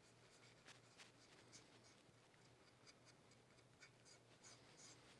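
Near silence: faint room hum with scattered light ticks and rubs as hands press a glued wooden strip in place.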